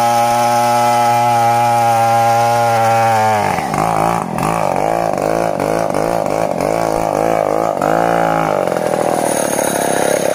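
A Stihl 070 two-stroke chainsaw cutting into the trunk of an old bitti tree, running steadily at full throttle. About three seconds in the engine pitch drops, then rises and falls over and over, about twice a second. Near the end it settles to a lower, steady running.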